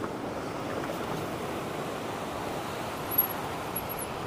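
Steady rushing of water pouring over a canal weir or lock, with a few short high-pitched chirps about three seconds in.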